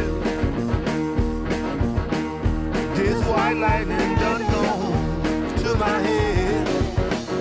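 Rock music with a steady drum beat and a wavering lead melody.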